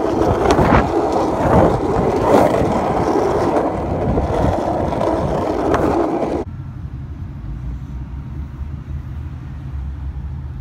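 Skateboard wheels rolling fast over rough asphalt: a loud, steady rolling rumble with scattered clicks from small bumps and cracks. About six seconds in it cuts off suddenly, leaving a quieter low rumble.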